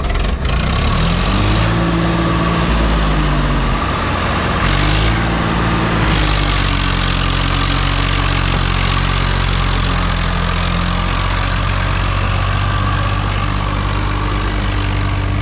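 Heavy diesel engine running loud and steady. It revs up and back down twice in the first six seconds, then settles to a steady speed.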